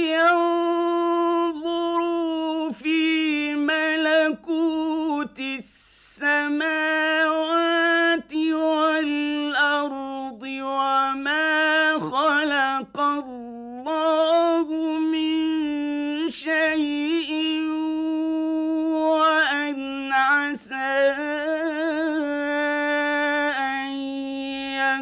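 A man's voice reciting the Quran in Arabic, chanting long, ornamented held notes with a quick breath about six seconds in.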